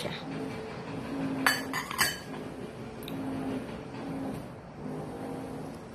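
Dishes clinking as a ceramic bowl of blanched pork is handled on the table: a quick cluster of clinks about a second and a half to two seconds in, and a lighter clink near three seconds.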